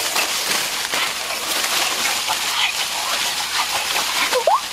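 Leafy branches and dry leaves rustling and crackling steadily as they are handled and trodden. A short rising whine cuts in near the end.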